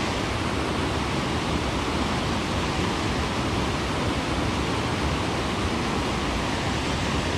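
Steady rush of white water churning into the channel, an even, unbroken noise.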